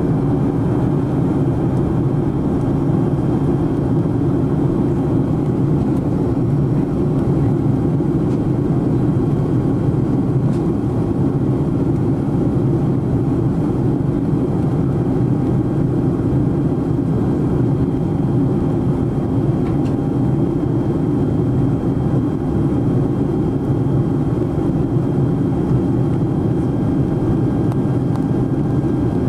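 Steady cabin noise inside a Boeing 747SP in flight: an even, low drone of the jet engines and air rushing past the fuselage.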